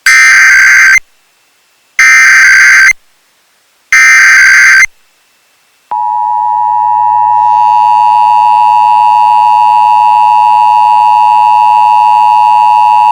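Emergency Alert System tones: three one-second bursts of the shrill SAME header data, two seconds apart, then about six seconds in the steady two-tone EAS attention signal begins, growing louder and holding as a loud, unbroken dual tone.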